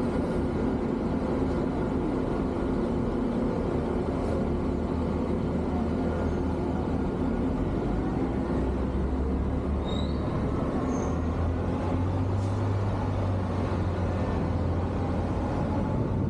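A motor vehicle's engine runs steadily close by, a low hum over road noise, shifting to a different pitch between about eight and twelve seconds in. A few faint short high chirps come around ten seconds in.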